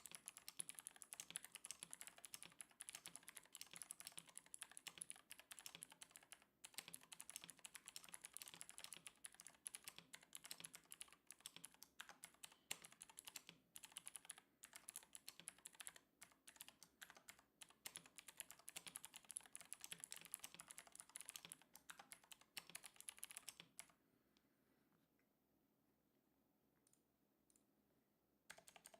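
Fast, continuous typing on a semi-custom mechanical keyboard with Outemu Gold switches, key after key clacking. It stops about 24 seconds in for a few seconds, then starts again just before the end.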